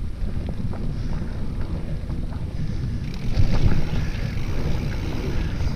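Mountain bike ridden fast down a dirt singletrack: wind buffeting the camera microphone as a steady rumble, with scattered clicks and knocks from the bike rattling over bumps, louder for a moment about halfway through.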